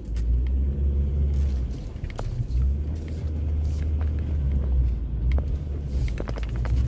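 Low, steady rumble of a car running, easing off for about a second near the start and then steady again.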